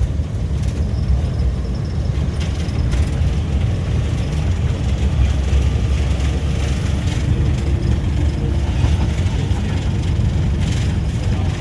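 Cab interior of a GE U18C diesel-electric locomotive under way: the diesel engine runs with a steady low rumble, and a few brief clicks and knocks come through now and then.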